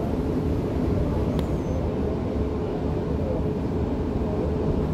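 Steady hum and rumble inside a Dubai Metro Alstom train car standing at an underground platform, with a steady mid-pitched tone from the car's running equipment.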